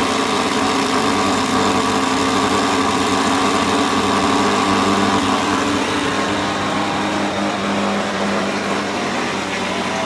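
A motor running steadily, a hum made of several steady pitches, easing off a little in the last few seconds.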